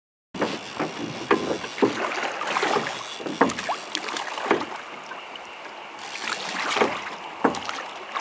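River water rushing and splashing around a small boat, with irregular sharp splashes and knocks a few times a second.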